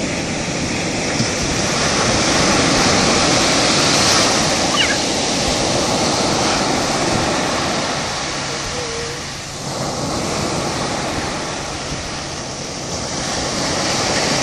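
Ocean surf breaking and washing up the sand in a steady rush that swells and ebbs, fading about two-thirds of the way through and building again near the end.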